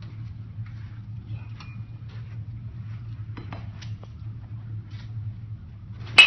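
Baseball bat striking a pitched ball near the end: one sharp, loud crack that breaks into a ringing ping, typical of a metal bat. Before it, a steady low hum and a few faint ticks.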